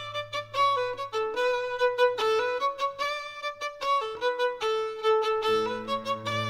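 Background instrumental music: a quick melody of short notes over a held low note, with a second held note joining about five seconds in.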